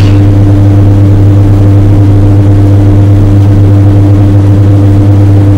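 A loud, steady low hum with a couple of steady higher tones over it, unchanging throughout.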